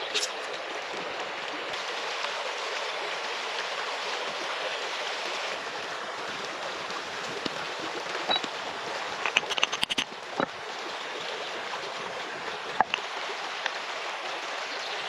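Shallow river running over stones, a steady rushing. A short cluster of sharp clicks about nine to ten seconds in and a single tick near thirteen seconds.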